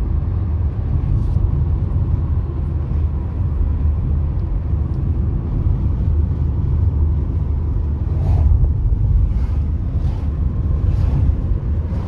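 Road noise inside a moving car: a steady low rumble of the engine and tyres on asphalt.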